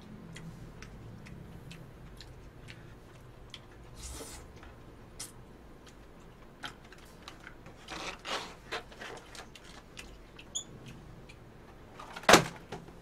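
A plastic fork ticking and scraping against a takeout food box while eating, in scattered small clicks with a busier run of them about eight seconds in. Near the end comes one sharp knock, the loudest sound, as the box is set down on the floor.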